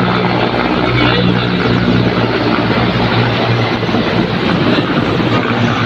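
Air force helicopter flying overhead: a loud, steady drone of engine and rotor with a low hum running under it.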